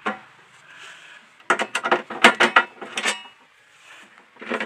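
Screws being undone from the cover of a Bentex SK motor starter box: a quick run of sharp clicks and creaks about a second and a half in, and another click near the end.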